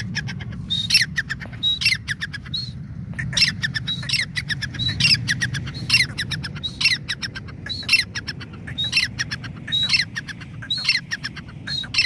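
Grey francolin (teetar) calling loudly: a high-pitched phrase of quick, clicking notes, repeated about once a second without a break.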